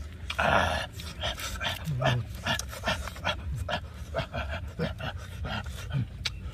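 People eating grilled fish with their hands: a quick run of wet smacking and chewing clicks, with a breathy exhale about half a second in and a few short low hums.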